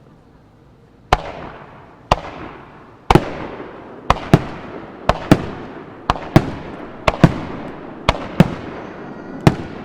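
Fireworks show: after a quiet second, a string of sharp bangs from fireworks, roughly one a second with several in quick pairs, each trailing off in a rolling echo.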